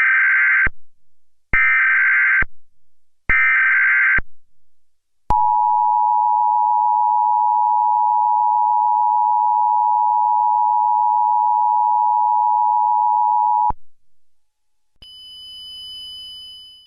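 Emergency Alert System header: three bursts of SAME digital data tones, each just under a second long, then the steady two-tone EAS attention signal held for about eight seconds and cut off sharply. Near the end a faint steady high-pitched hum.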